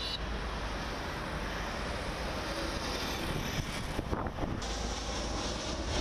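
Twin-engine jet airliner climbing away after takeoff: steady jet-engine noise with a low rumble.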